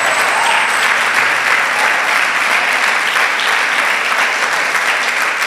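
A congregation applauding steadily, a dense crackle of many hands clapping.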